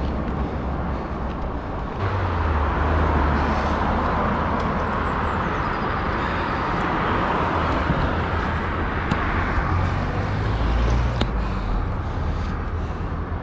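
Road traffic passing close by during a bicycle ride, with a steady rumble of wind on the microphone. The traffic noise swells about two seconds in and eases off near the end.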